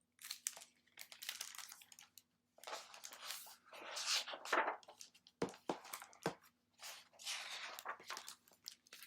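Paper rustling and crinkling in irregular bursts as a picture book is handled and its pages turned, with two sharp clicks about halfway through.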